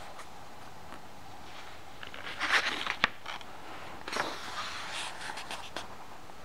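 Book pages being handled and turned, paper rustling in a few short scratchy bursts, with one sharp click about three seconds in.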